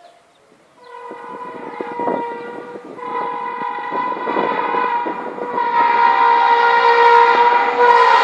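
Indian Railways train horn starting about a second in and held as one long steady blast, growing louder as the train comes closer, over the clatter of the wheels on the rails.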